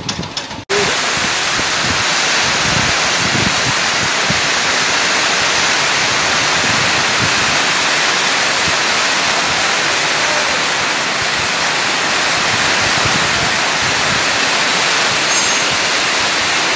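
Engine-driven compost shredder running at speed: a loud, steady rushing noise with no clear engine beat. It starts abruptly about a second in.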